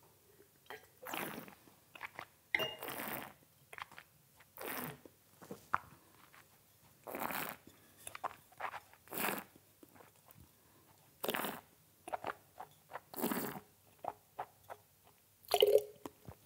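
A wine taster aerating a mouthful of red wine: quiet slurping, sucking breaths drawn through the wine, about one every two seconds, with small wet mouth clicks between them.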